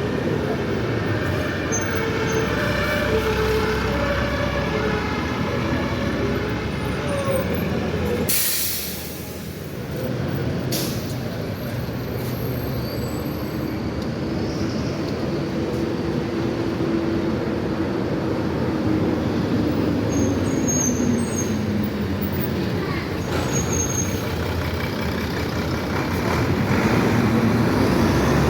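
Mercedes-Benz OM366LA turbocharged six-cylinder diesel bus engines running through open, straight-piped exhausts, rumbling and revving, with the revs falling away about twenty seconds in and rising again near the end. About eight seconds in, a loud hiss of air brakes lasts about a second.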